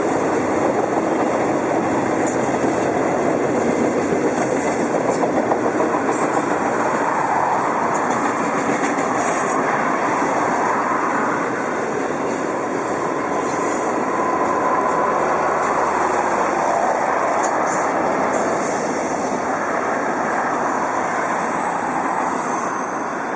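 Double-stack container freight train rolling past, its cars and wheels on the rails making a steady, continuous noise.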